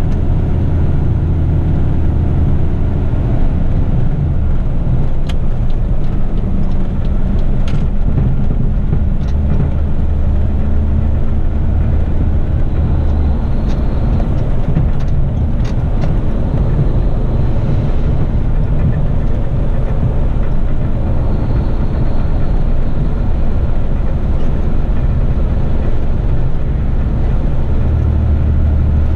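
Heavy rigid truck's diesel engine and road noise heard from inside the cab while driving: a loud, steady low drone whose note shifts a few times. A few faint clicks come in the middle.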